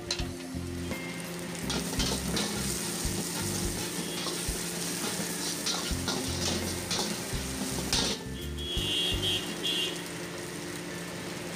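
Chicken pieces and vegetables sizzling in a large wok, with a metal spatula scraping and clanking against the pan as the food is stirred and tossed.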